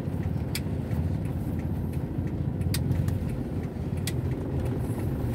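Steady low rumble of a car's engine and tyres heard from inside the cabin while driving slowly on a wet road. A few scattered sharp ticks stand out.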